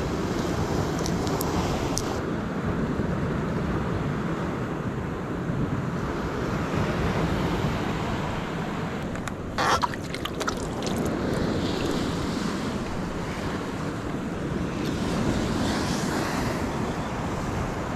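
Ocean surf washing against rocks, with wind buffeting the microphone. A short rattle of clicks sounds a little past halfway.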